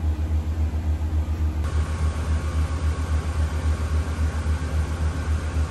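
Eppendorf Centrifuge 5810 R refrigerated benchtop centrifuge running while spinning down cells: a loud, low pulsing hum, with a higher hiss joining about a second and a half in.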